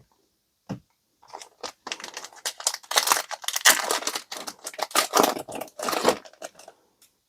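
A Yu-Gi-Oh booster pack's foil wrapper being torn open and crinkled by hand, a run of crackling and rustling lasting several seconds.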